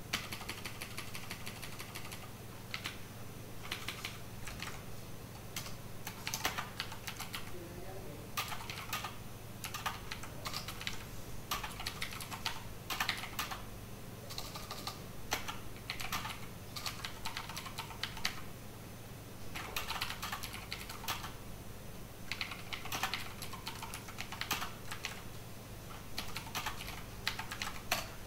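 Computer keyboard typing in quick bursts of keystrokes with short pauses between them, over a steady low hum.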